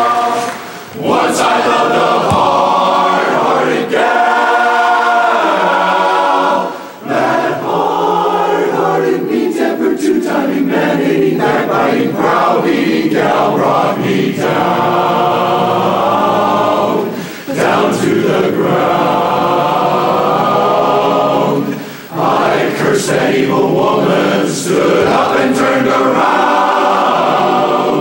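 Men's barbershop chorus singing a cappella in close harmony: sustained chords in phrases, with short breaks between them every few seconds.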